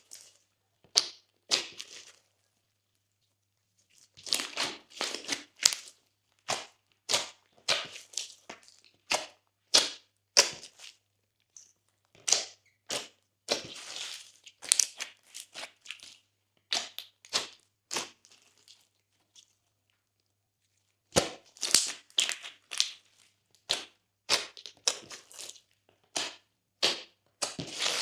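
Glossy slime being pressed and mixed by hand, giving quick runs of crackling clicks and pops from trapped air bubbles, broken by a couple of pauses of a second or two.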